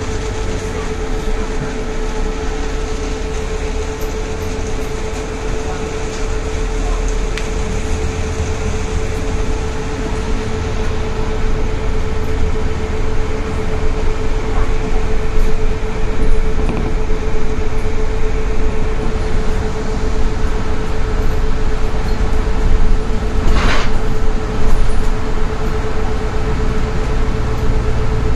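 Interior ride noise of a moving tram: a steady low rumble with a constant motor hum, growing a little louder later on. A brief higher-pitched sound cuts through a few seconds before the end.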